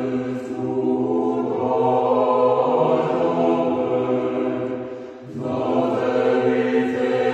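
Background music: a choir chanting long, held notes, with a brief break between phrases about five seconds in.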